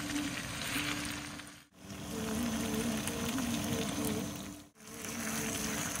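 Diced meat sizzling as it fries in a steel saç pan over a fire, with soft melodic music underneath. The sound cuts out briefly twice.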